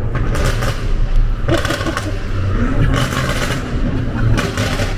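BMW F90 M5 Competition with a Remus cat-back exhaust, heard from a following car: its twin-turbo V8 rumbles low while the exhaust crackles and pops in four short bursts, about one every second and a half.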